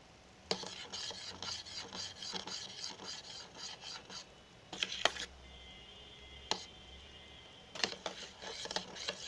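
A spoon scraping around the inside of an electric kettle, stirring rice boiling in milk. It comes as quick repeated scraping strokes, pauses for a few seconds around the middle with a single knock, then resumes near the end.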